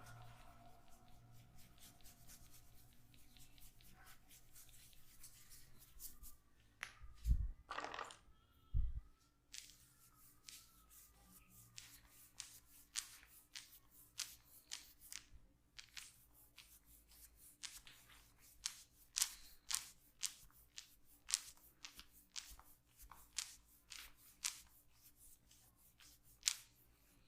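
Hands massaging skin, making soft sharp clicks and slaps at an irregular pace of about one or two a second. Two dull thumps come about a quarter of the way in.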